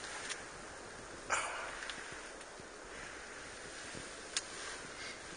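Steady wind noise with a few brief rustles and clicks as the camera is handled inside a fabric hunting blind. There is a louder rustle about a second in and a sharp click near the end.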